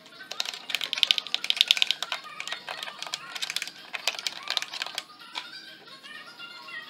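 A quick run of sharp clicks, densest about one to two seconds in, over background music with strings; the clicks stop about five seconds in and the music carries on.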